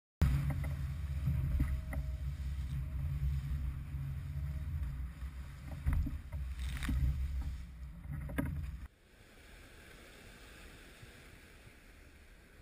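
Boat running through rough chop: a steady low engine drone with hiss, with a few sharp slaps as the hull hits waves. About nine seconds in it cuts to a much quieter steady wash of wind and water.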